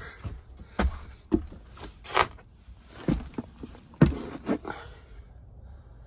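Footsteps on the wooden plank floor of an attic, roughly two a second, with a brushing scuff about two seconds in; the steps stop about five seconds in.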